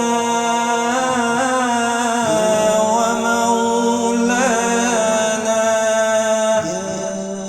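A solo male voice chants an Islamic ibtihal (devotional supplication), drawing a single syllable out into long held notes with ornamented turns. The melody steps to a new sustained pitch about two seconds in and again near the end.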